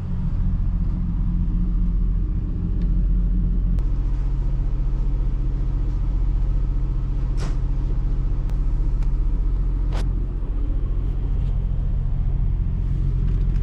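An engine running steadily with a low rumble, and two short sharp clicks partway through.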